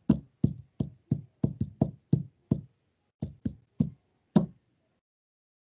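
A series of sharp taps or knocks, about fourteen at an uneven pace of roughly three a second, stopping about four and a half seconds in.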